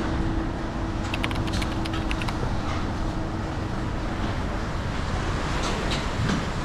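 Strong wind and rough, whitecapped sea at a ship's open stern doorway, with the wind buffeting the microphone. A steady hum runs under it for the first four seconds or so.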